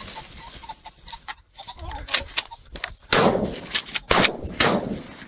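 Gunshot sound effects: after a quieter lead-in, four loud shots about half a second to a second apart, each trailing off in a long echoing tail.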